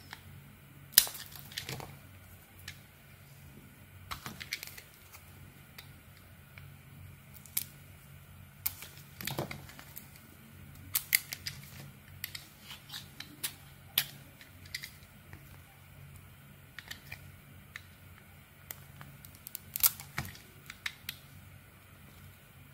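A small knife blade shaving and cutting into a bar of soap, giving irregular crisp clicks and cracks as flakes break off, the loudest about a second in and again near the end.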